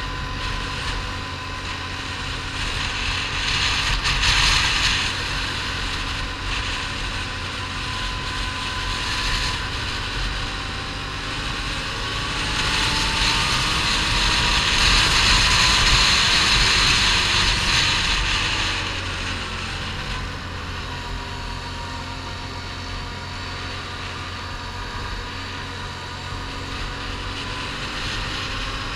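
An ATV engine running steadily at cruising speed, with a faint whine that drifts slowly up and down in pitch. Wind rushes over the microphone throughout, surging louder for a few seconds near the start and again around the middle.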